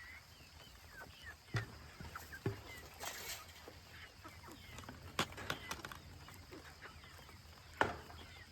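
Chickens clucking and calling in short chirps, with scattered sharp knocks and clicks from handling around the coop.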